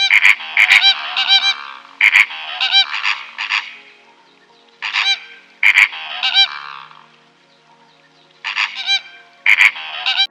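Animal calling loudly in four groups of short, pitched calls, several calls in quick succession in each group, with pauses between the groups.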